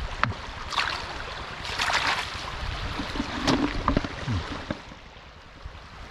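Water splashing and sloshing in a few short bursts, over a steady low rumble.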